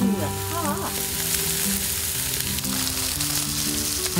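Pork belly and octopus sizzling on a hot grill plate over a wood fire, a steady frying hiss. Background music plays under it.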